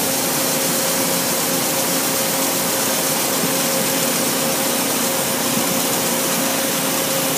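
Industrial horizontal band saw running steadily as it cuts through a piece of railroad rail: an even mechanical noise with a constant whine.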